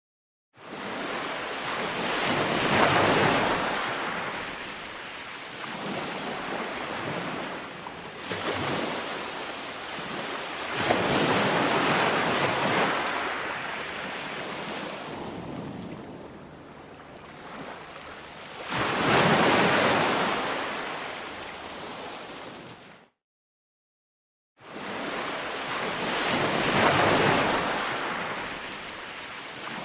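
Ocean waves breaking on a shore, each surge swelling to a crash and washing back, about every eight seconds. The sound cuts out completely for a moment at the start and again about two-thirds of the way through.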